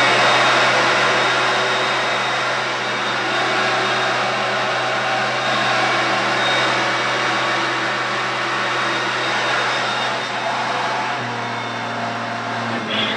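Hoover Concept One upright vacuum cleaner running steadily, motor and brushroll turning on a freshly fitted agitator belt, a constant hiss with a low hum underneath. The hum shifts about eleven seconds in.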